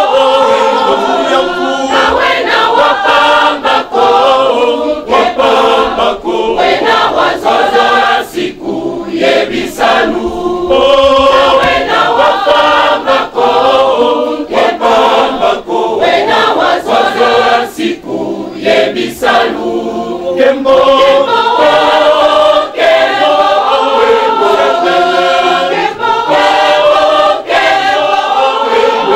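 A large church choir singing a hymn together, the phrases broken by short pauses about nine and eighteen seconds in.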